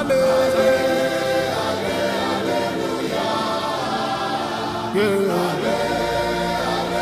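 A choir singing a gospel worship song, with a note held at the start and a new phrase coming in about five seconds in.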